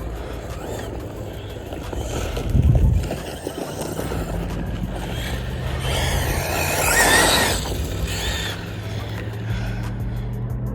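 A Rlaarlo DSK-8 1/8-scale brushless RC buggy driving over dirt, its motor whining up as it speeds past, loudest about seven seconds in. There is a heavy thump near three seconds in, and a steady low hum runs underneath.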